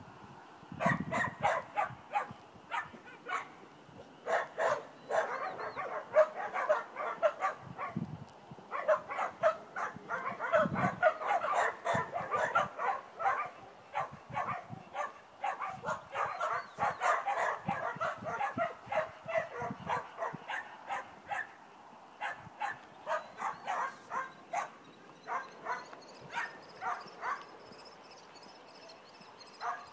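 Border collie yipping and whining in rapid, repeated short calls, the excited noise of a dog made to hold a stay. The calls thin out after about twenty seconds.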